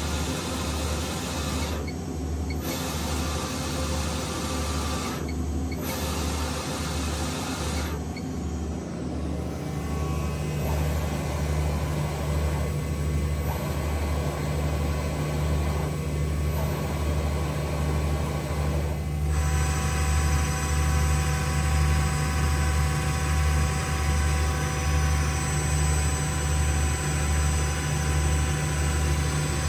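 Swiss-type CNC lathe running under power: a steady low machine hum that pulses about twice a second, with a higher hum joining about a third of the way in and further steady tones about two-thirds in.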